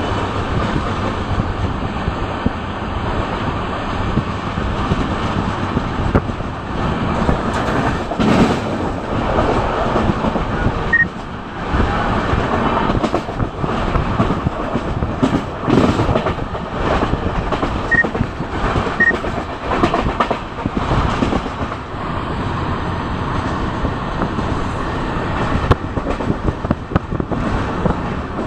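Indian Railways passenger train running at speed, heard from inside the coach at the window: a steady rumble of wheels on rail, with irregular knocks and clatters from the track.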